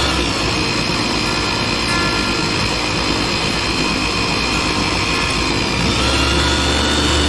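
Kenwood electric mini chopper running continuously, its motor whining as it blends a thin yogurt-garlic sauce in the plastic bowl. The whine steps up in pitch at the start and drops back about six seconds in.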